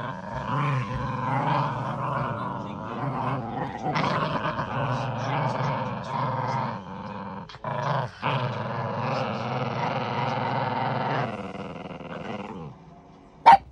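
Italian greyhound puppies growling almost without a break while tugging a rope toy, with two short pauses past the middle. The growling stops about a second before a single sharp click near the end.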